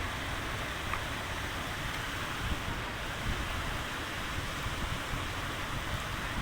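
Steady outdoor noise: wind buffeting the microphone in low rumbles over an even hiss.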